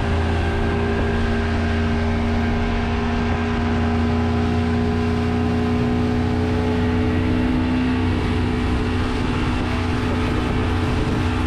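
Motorboat engine running steadily at speed while towing a tube, a constant drone with no change in pitch.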